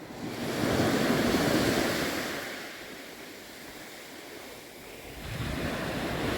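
Small waves breaking and washing up the beach: one surge swells about half a second in and dies away by about three seconds, and the next comes in after about five seconds.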